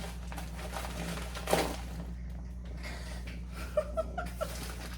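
Rustling and crinkling of packaging being handled as a parcel is unpacked, with a few short high chirps about four seconds in.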